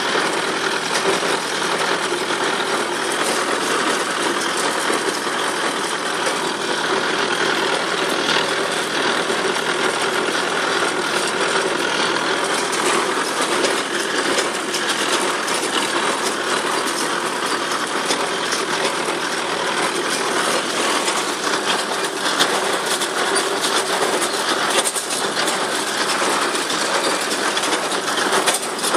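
A tractor-drawn small square hay baler at work: the tractor engine runs steadily with the baler's mechanical clatter mixed through it.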